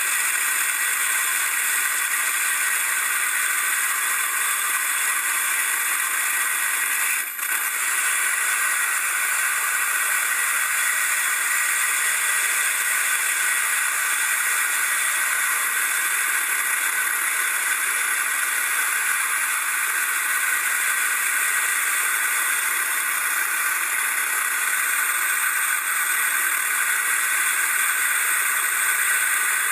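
Steady loud rush of freefall wind on the microphone of a tandem skydive, dipping briefly about seven seconds in.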